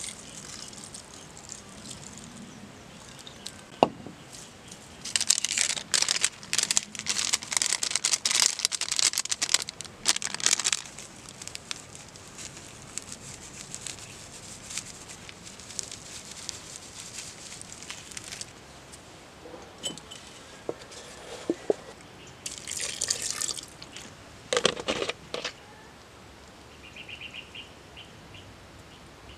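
Dry crinkling and crackling as ground black pepper and other seasonings are shaken into a pot of fish and vegetables. It comes in spells, the longest about six seconds, with a sharp knock about four seconds in.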